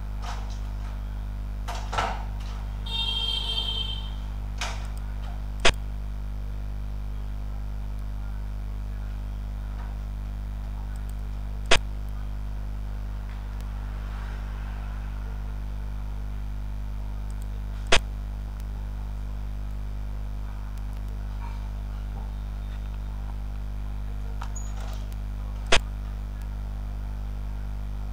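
A xiangqi program's piece-move click, a short sharp tick about five times several seconds apart as pieces are placed on the board, over a steady low electrical hum. A brief faint high warble comes about three seconds in.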